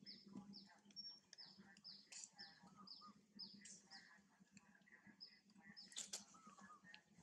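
A bird calling faintly in the background: short falling chirps repeated about twice a second, with one sharp click about six seconds in.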